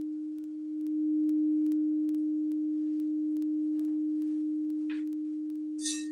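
A sapphire-infused quartz crystal singing bowl tuned to D sharp, ringing one pure, steady tone. The tone swells louder about a second in.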